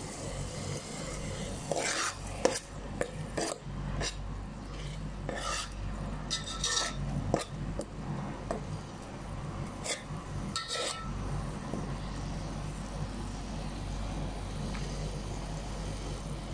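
Metal spoon stirring salted shrimp fry and egg in a pot, scraping and clinking against the pot's sides, with clinks bunched in the first half and again about ten seconds in, over a steady low hum.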